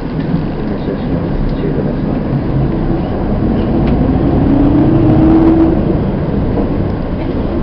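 Hino Blue Ribbon City Hybrid bus running with a low rumble. A whine rises slowly in pitch from about three seconds in, at its loudest near five and a half seconds, then fades.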